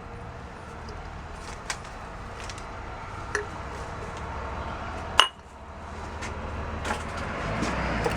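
Glass items clinking and knocking as they are handled in a box of odds and ends, with one sharper, ringing clink about five seconds in.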